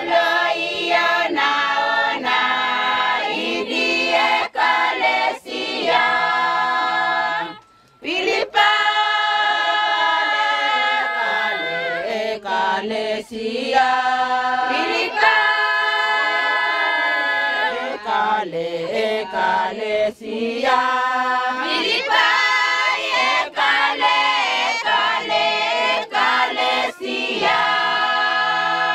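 A choir of many voices singing in harmony, with long held notes, breaking off briefly about eight seconds in before carrying on.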